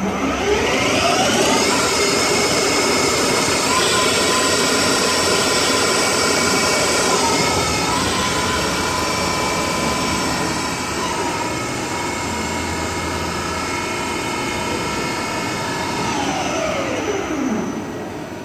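Mazak CNC lathe spindle spinning up with a rising whine, running at steady speed with small pitch steps about four and eight seconds in, then winding down to a stop near the end.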